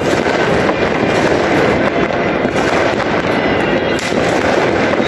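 Fireworks and firecrackers going off in a dense, continuous barrage of crackling and popping.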